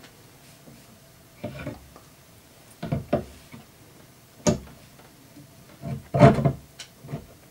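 Parts of a quarter-scale statue knocking and scraping together as a leg piece is worked into its socket on the base: a handful of short knocks and rubs, the loudest about six seconds in.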